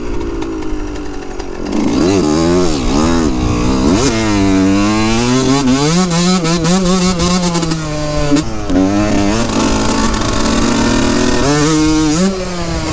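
2003 Yamaha YZ125's single-cylinder two-stroke engine revving hard while riding, its pitch climbing and falling again and again as the throttle is opened and shut through the gears, with a brief cut a little past the middle and a drop off the throttle near the end.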